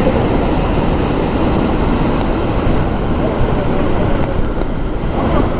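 Steady roar of the Iguazú waterfalls: a loud, even rush of water, heaviest in the low end, with a few faint ticks.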